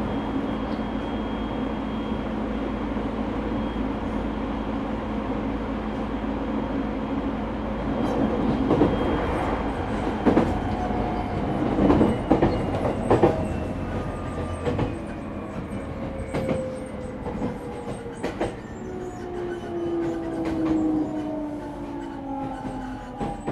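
Interior running sound of a JR 209-0 series EMU motor car, unrefurbished with its original inverter and traction motors. A steady run gives way to sharp wheel clacks over rail joints, then the motor and inverter tones fall steadily in pitch through the second half as the train slows for the next station.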